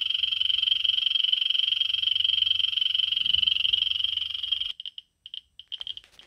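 Victoreen 290 survey meter's audio speaker buzzing from a GEO-210 pancake Geiger probe held over pitchblende uranium ore. The count rate is so high that the clicks merge into one continuous buzz. About three-quarters of the way through, the buzz breaks into a few short stutters and then stops as the count rate falls.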